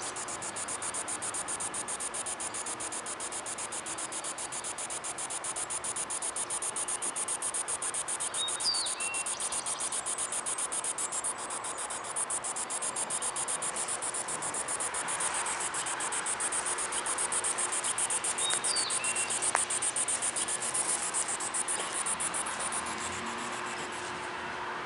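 Outdoor insect chorus: a steady, fast, high-pitched pulsing trill. A bird gives a short two-note call three times, about ten seconds apart.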